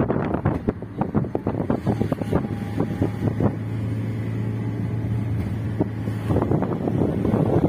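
Car driving along, heard from inside the cabin: wind buffets the microphone in gusts. In the middle the buffeting eases, leaving the engine's steady hum, and the gusts pick up again near the end.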